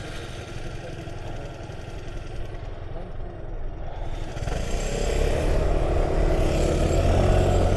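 Motor scooter engine running, growing louder about halfway through as it pulls away.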